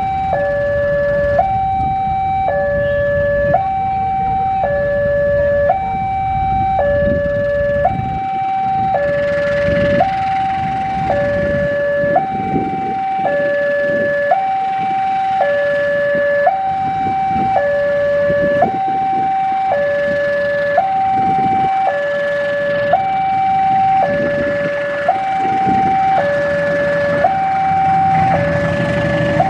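Railway level-crossing warning alarm sounding a steady hi-lo two-tone signal, each tone about a second long, warning that a train is passing. Beneath it is the low rumble of a CC 201 diesel-electric locomotive hauling its train, heaviest in the first several seconds.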